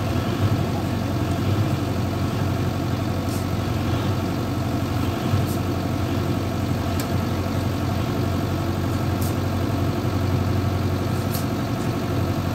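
JCB 3DX backhoe loader's diesel engine running steadily at a low, even speed while its front loader bucket holds up a tipped truck.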